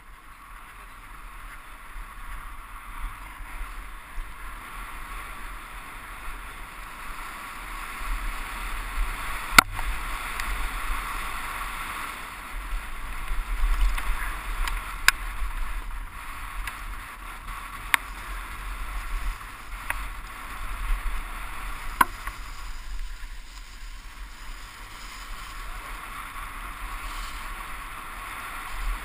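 Wind rushing over a helmet-mounted action camera and the rumble of a downhill mountain bike's tyres on a rough dirt track, with a few sharp knocks as the bike jolts over bumps.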